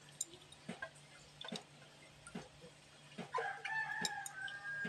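Soft knocks about once every second as a bowl of washed, wet split lentils is tapped out into an aluminium pressure cooker. Over the last knocks comes a louder, long pitched call held for about a second and a half.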